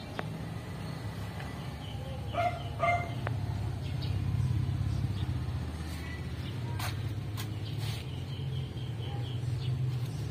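A steady low motor hum, with two short animal calls in quick succession a couple of seconds in and a few light knocks later on.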